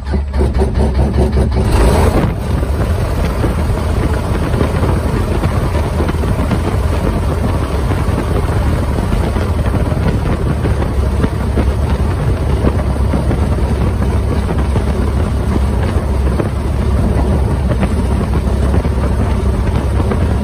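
Front engine and propeller of a Rutan Defiant twin light aircraft starting: the engine has just caught and is louder for about the first two seconds, then settles into a steady idle near a thousand rpm.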